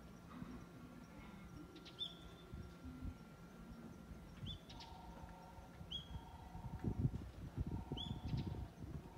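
A small bird calling with short, high chirps, each a quick upward flick onto a briefly held note, about five times with pauses between, over a faint low rumble.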